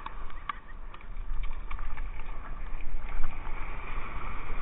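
Wind buffeting the camera's microphone as a steady low rumble, with small waves washing on the beach and a few short handling clicks. The wash grows louder about three seconds in.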